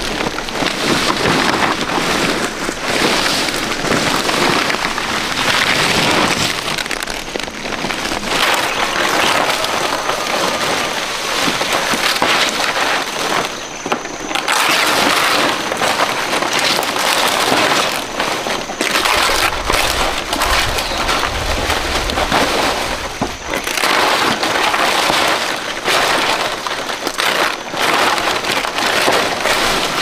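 Large fan palm leaves rustling and crackling as they are handled and shifted, a dense, irregular stream of crisp crackles.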